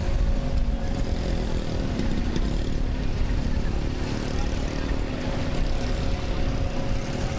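Steady low rumble of a jet airliner's engines running, with a constant hum over it.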